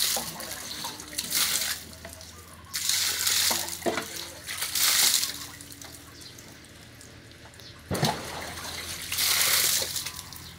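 Water splashing and dripping in repeated bursts, about four, as a bunch of long green leaves is dunked in and lifted out of a large clay water jar to rinse them, with a few sharp knocks in between.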